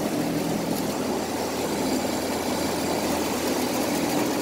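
Outdoor central air-conditioner condensing unit running: a steady fan whoosh over a constant low mechanical hum.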